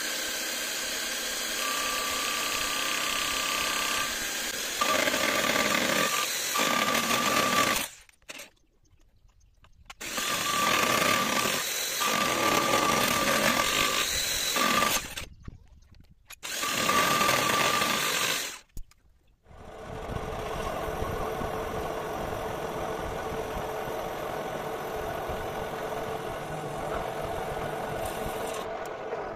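Electric hand drill mounted on a lathe's carriage, driving a small milling cutter into a metal workpiece held in the four-jaw chuck: motor running with a steady high cutting whine, stopped and restarted three times. About two-thirds of the way through, a steadier, quieter motor hum takes over as the lathe spindle and chuck turn.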